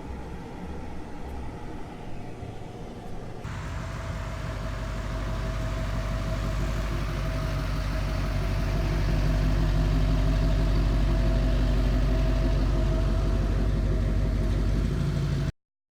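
A motor vehicle running: a steady low engine and road rumble that grows louder and then cuts off suddenly near the end.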